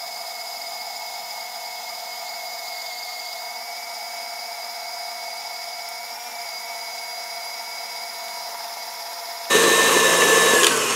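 Electric stand mixer with a paddle attachment running steadily with a motor whine as it beats eggs into creamed butter, sugar and almond paste. About nine and a half seconds in it suddenly gets louder, and near the end its whine falls in pitch.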